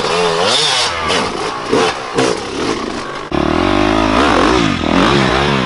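Dirt bike engine revving hard, its pitch rising and falling again and again as the throttle is worked. About three seconds in it gets louder and deeper.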